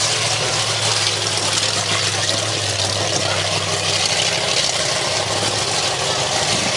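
Monster truck engine running at a steady, low-revving note as the truck drives slowly.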